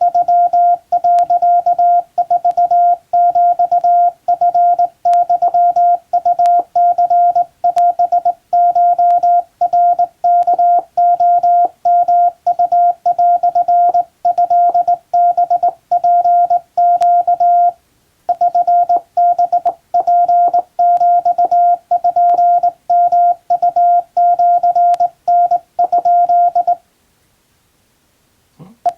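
Morse code hand-sent on a Japan Radio Co. (JRC) telegraph key: a single mid-pitched beep keyed on and off in dots and dashes at an even pace. It pauses briefly a little past halfway and stops about two seconds before the end, with a faint click just after.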